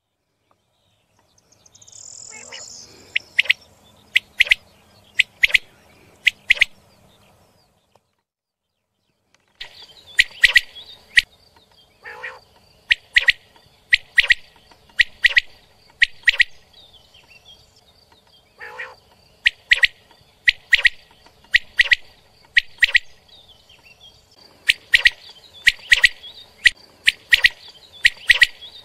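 Common quail calling: short, sharp calls repeated in quick series, with a break of about two seconds about a third of the way through.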